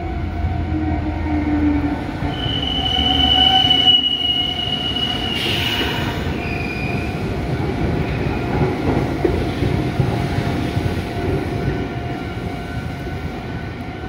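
Red Meitetsu electric train approaching and passing close by: a high steady wheel squeal for about three seconds early on, then the loud rumble and clatter of wheels over the rails as the cars go past. Level-crossing alarm tones ring steadily underneath.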